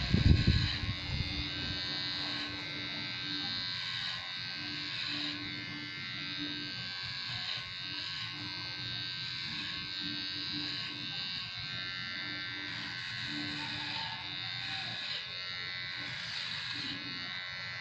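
Electric hair clipper running with a steady high buzz as it is worked over the head, cutting hair. A brief low rumble sounds right at the start.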